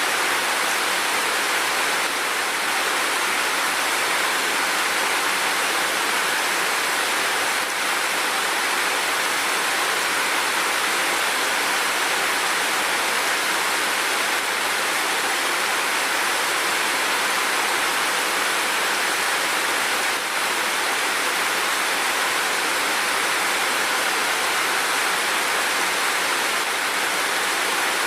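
Steady rain falling as a dense, even hiss, with no separate drops standing out.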